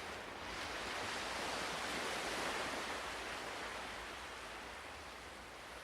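Ocean waves washing in: a single swell of surf that builds over the first two seconds and slowly recedes.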